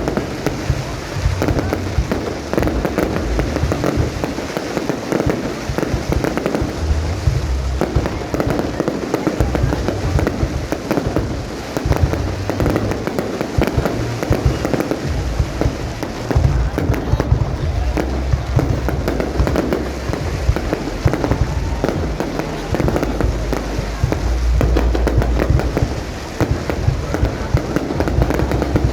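Aerial fireworks display: a continuous barrage of booming bursts and crackling, with deep rumbling booms that swell about two-thirds of the way through.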